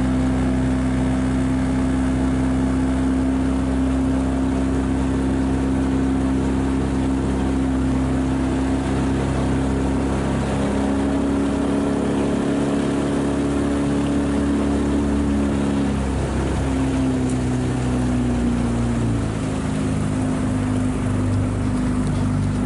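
A small boat's outboard motor running under way. Its steady note shifts a few times with the throttle and settles lower near the end.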